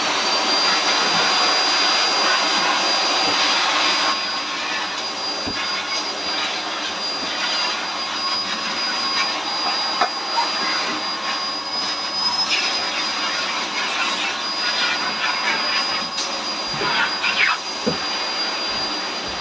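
Canister vacuum cleaner running at full speed: a steady, noisy motor roar with a high whine, dipping slightly about four seconds in, with a few brief knocks as the nozzle works over carpet. It is drawing about 1400 watts.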